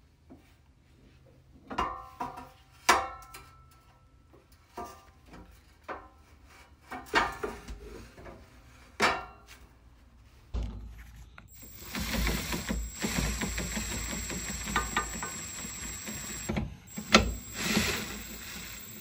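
Metal clicks and clunks as a steel sway bar and its bushing bracket are handled into place. About ten seconds in, a cordless drill starts running steadily through a socket extension to drive the bracket bolts, then gives two short bursts near the end.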